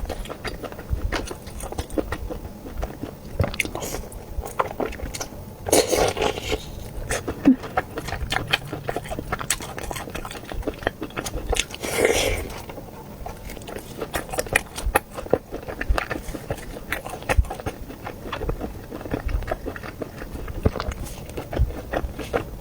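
Close-miked chewing and biting of air-fried ring sausage: a steady run of quick mouth clicks and smacks, with two louder bites about six and twelve seconds in.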